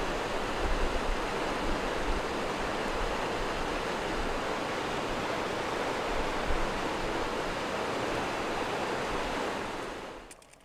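Steady rush of the river's falling water, with wind buffeting the microphone in low rumbles. It fades out near the end.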